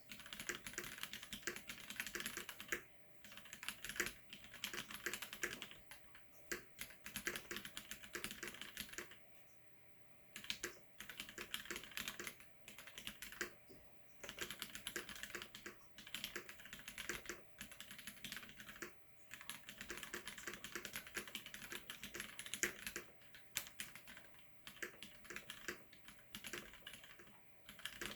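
Mechanical keyboard with Cherry MX switches being typed on, fast runs of key clicks broken by short pauses every few seconds.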